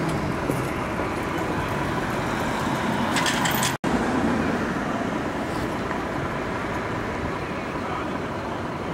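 Steady street traffic noise: a continuous hiss of vehicles and running engines. The sound drops out for an instant about four seconds in.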